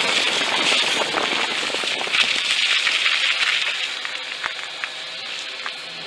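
Car tyres rolling over wet gravel and fallen leaves: a dense crackling crunch with scattered sharp clicks of stones. It grows quieter over the last two seconds and cuts off suddenly at the end.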